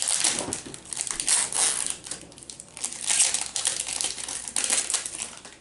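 Foil wrapper of a Pokémon Sun & Moon booster pack crinkling in the hands as it is worked open, in several loud bursts that die down near the end.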